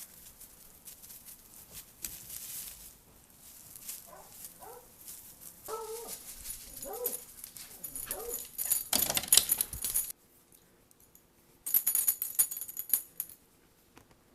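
A Dalmatian giving four or five short whining calls, with metal collar tags jingling and clicking in two bursts later on.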